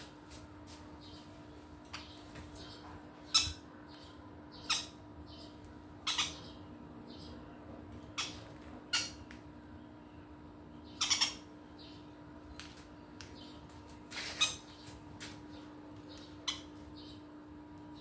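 Green-cheeked conures giving short, sharp squawks at irregular intervals, about a dozen in all, over a steady low hum.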